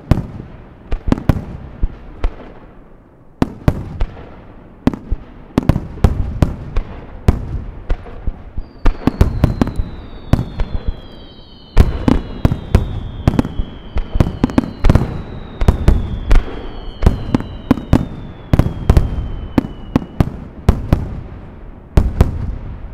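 Fireworks finale barrage: aerial shells bursting in rapid succession, dozens of sharp booms with crackling between them. Through the middle, several long falling whistles sound over the bursts.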